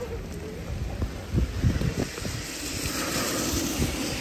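Gusty wind buffeting the microphone in uneven low blasts, with a faint hiss of wind or rain behind it.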